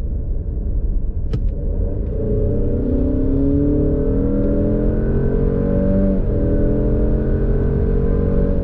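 2.0-litre turbocharged four-cylinder engine of an Alfa Romeo Stelvio Veloce accelerating hard, rising in pitch. About six seconds in, the pitch drops at an upshift of the eight-speed automatic, then the engine pulls on.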